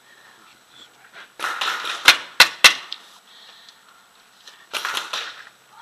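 Paintball marker firing three quick shots about two seconds in, sharp cracks within about half a second. Around them are two stretches of rushing, hissing noise, one just before the shots and one near the end.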